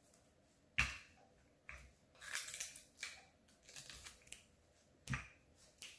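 Scotch tape pulled off a desktop tape dispenser and torn off on its cutter: a few short ripping bursts, with two sharp clicks, about a second in and near the end.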